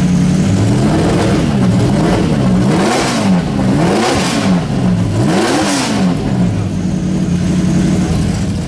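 Car engine idling, revved four times in quick succession, each rev rising and falling in pitch, then settling back to a steady idle.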